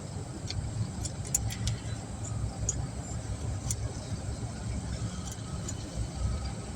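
Steady low vehicle rumble, with a few light metallic clicks and taps as brake hardware is fitted into the front caliper.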